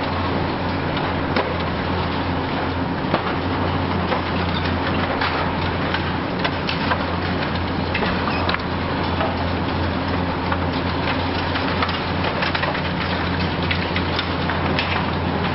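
Hitachi Zaxis 870 high-reach demolition excavator's engine running steadily under a scatter of sharp cracks and crackling as building material breaks and debris falls.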